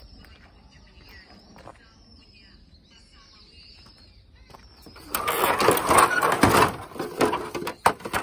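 Loud close rustling and crackling, the sound of something being handled right at the microphone. It starts about five seconds in and lasts about three seconds. Before it, a faint high-pitched chirring runs in the background.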